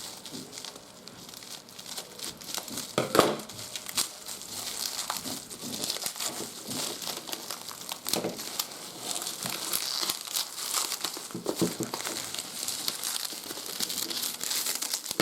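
Bubble wrap and plastic packaging crinkling as they are handled and pulled away from a boxed radio, a steady crackle of small clicks with a few louder knocks of handling.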